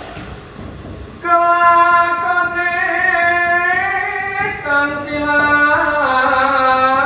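A man singing a cappella in a high voice, coming in loud about a second in: long held, slightly wavering notes that step down to lower pitches twice toward the end.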